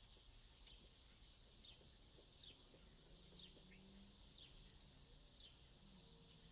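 Near silence: quiet room tone with a faint bird chirping, short falling chirps about once a second.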